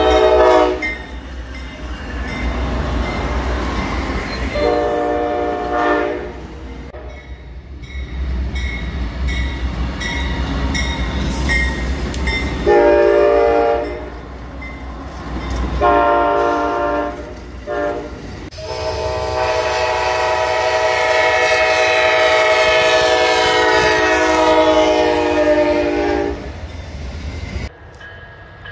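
Amtrak passenger locomotives' air horns sounding chords several times, the last blast long, lasting about seven seconds. Between the blasts comes the rumble and wheel noise of trains passing on the rails.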